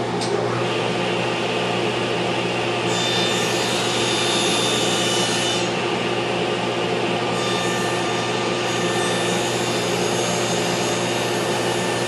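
Woodshop power tool running steadily: a motor hum under a hissing, rasping noise that brightens a few seconds in.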